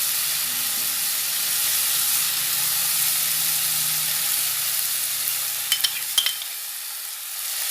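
Chopped vegetables sizzling in hot oil in a pan over a high flame, with a few sharp clinks a little past halfway.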